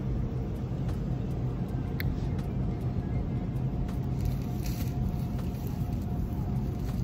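Steady low rumble with a faint hum, the background noise of a grocery store, with one sharp click about two seconds in.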